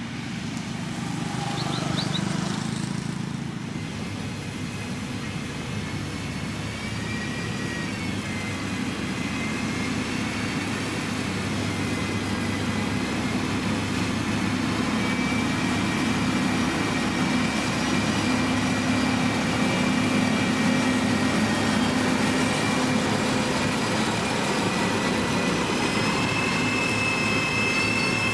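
A heavy diesel construction machine's engine running steadily, with a high whine above the engine note, growing gradually louder.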